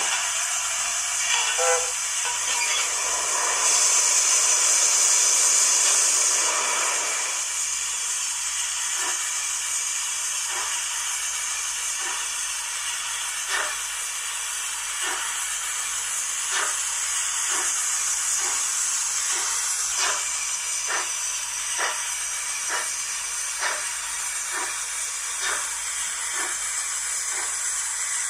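Model steam locomotive sound decoder (YouChoos Zimo sound in a Hornby A4 Kingfisher) playing through its small speaker: a steady steam hiss, a louder burst of hiss for a few seconds near the start, then slow, evenly spaced exhaust chuffs, a little over one a second.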